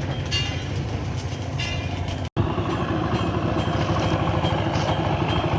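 Vehicle engine running steadily, with a brief break about two seconds in.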